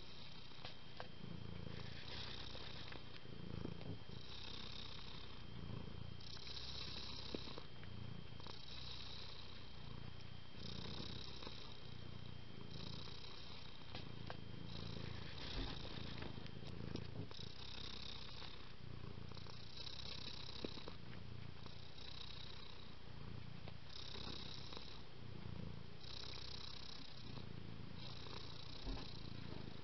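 A domestic cat purring steadily. The purr swells and eases with each breath, about every two seconds.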